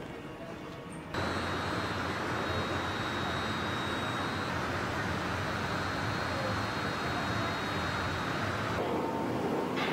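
Steady industrial roar of machinery and air handling at a car-body dip-coating line, with a faint steady high whine over it. It starts abruptly about a second in and shifts slightly in tone near the end.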